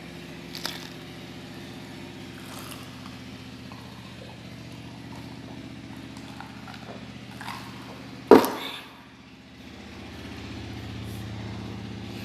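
A steady low engine-like hum in the background, with a few faint clicks and one sharp, loud knock about eight seconds in.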